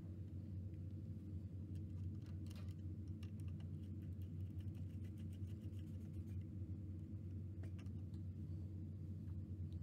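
Faint scattered clicks and taps of a screwdriver and wire ends being fastened into the screw terminals of a PWM fan controller, over a steady low hum.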